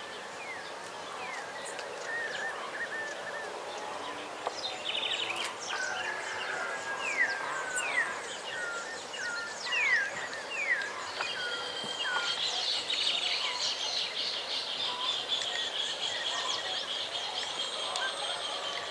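Outdoor ambience of wild birds calling: a run of short, quick downward-sliding whistles, joined about halfway through by a long, steady high-pitched trill that lasts to the end.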